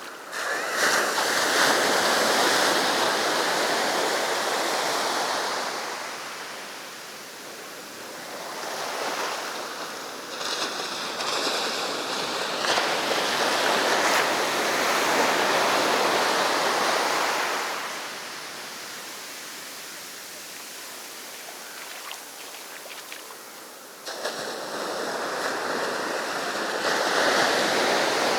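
Sea waves breaking and washing up the beach, the surf swelling and dying away in long surges several seconds apart.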